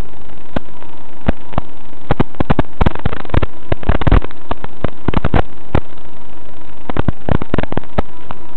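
Loud, steady radio static hiss from an analog 5.8 GHz FPV video link's audio channel, broken by irregular crackles and pops that come thickest around the middle, the sound of interference on the link.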